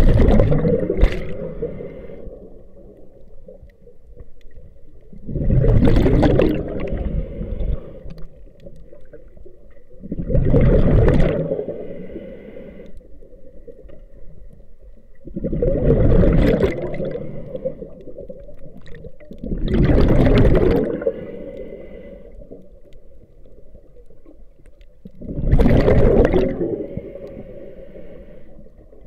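Scuba diver breathing through a regulator underwater: six bursts of exhaled bubbles, roughly one every five seconds, with quieter breathing between.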